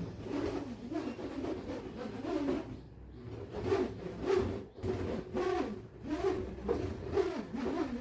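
Hex nut whirling inside an inflated rubber balloon as it is swirled, a 'screaming balloon'. The nut's flat edges strike the rubber and set it vibrating, giving a buzzing hum that wavers up and down in pitch in repeated surges.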